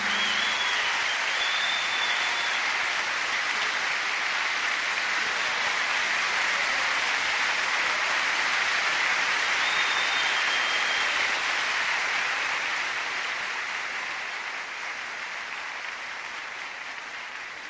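Crowd applauding, with a couple of short high whistles, fading out gradually over the last several seconds.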